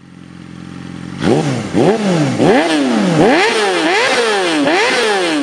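Motorcycle engine idling, then revved in a quick series of throttle blips, each a fast rise in pitch and a slower fall, about seven in a row.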